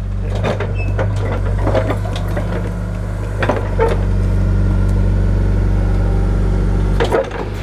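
John Deere backhoe's diesel engine running steadily while its bucket pushes soil back toward the hole, with a few knocks from clods and the bucket. The engine sound drops away near the end.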